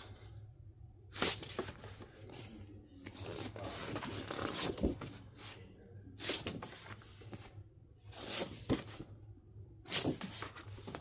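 Paper, card and plastic album packaging rustling and being handled, in short bursts about every second or two, with a few sharp clicks.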